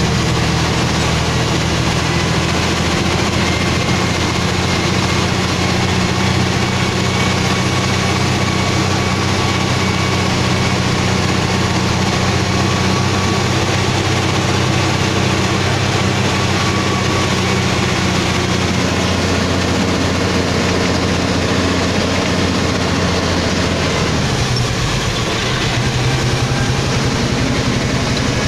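Truck's diesel engine running steadily, heard from inside the cab with road noise. About 24 seconds in, the engine note drops and shifts.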